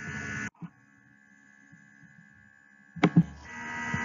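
Faint room hum from a recording microphone, cut off abruptly about half a second in, followed by one soft thump and near-quiet room tone. About three seconds in come two quick, loud thumps, and the hum and room noise then come back.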